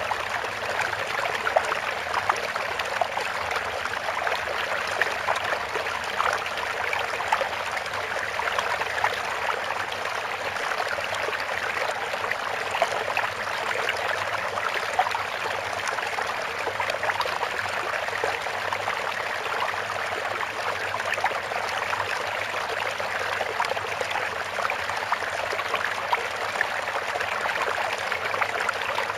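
Steady sound of running water, a trickling stream with a dense, even patter.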